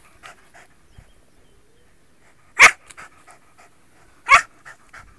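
Wire fox terrier giving two short, sharp barks while nosing into a hollow stump, the second about a second and a half after the first, with quieter panting breaths between.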